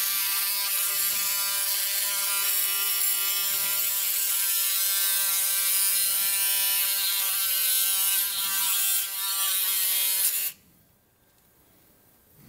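Powered oscillating bone saw cutting through the humeral head along a cutting guide: a steady buzzing whine that dips briefly near the end and stops about ten and a half seconds in.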